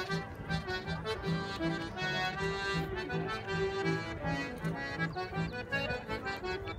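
Button accordion playing a lively traditional tune over a steady bass beat.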